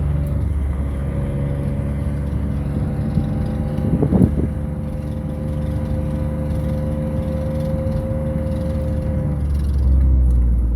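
Vehicle engine running steadily with road rumble while driving slowly, heard from inside the vehicle. There is a brief knock or jolt about four seconds in, and the low rumble swells near the end.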